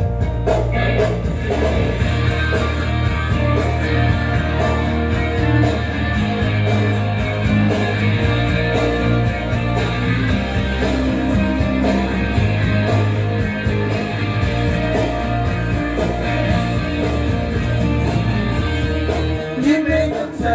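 Music: a song with singing, guitar and a steady bass line.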